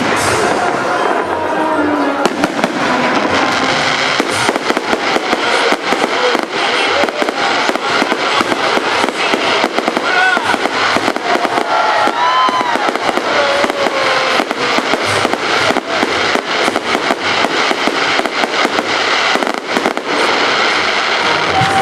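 Fireworks salute bursting almost without pause: rapid sharp bangs and crackling, with music and voices underneath.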